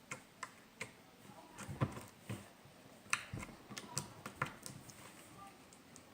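A small homemade slime with blue glitter being poked and pressed by fingers, making about eight soft, irregular clicks and pops.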